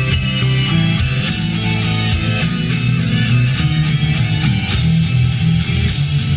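Rock music with strummed electric guitar, loud and steady.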